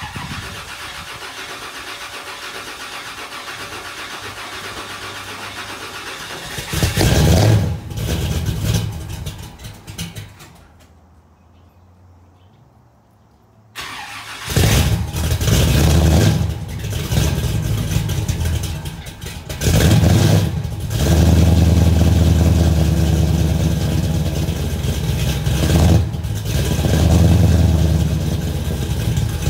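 Classic Ford Galaxie being cold-started after sitting for a while. It cranks for several seconds, catches and revs briefly, then dies away. About halfway through it fires again and keeps running, with repeated revs.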